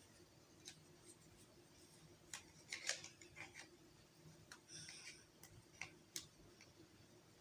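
Faint, scattered clicks and taps of hard plastic being handled as wing pieces are fitted onto a 12-inch Vulture action figure, with a small cluster of clicks about three seconds in.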